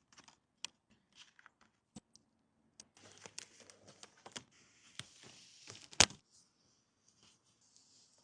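Packaging being handled and torn open during an unboxing: scattered clicks and taps, then a few seconds of rustling, crinkling paper or plastic, with one sharp snap about six seconds in, the loudest sound.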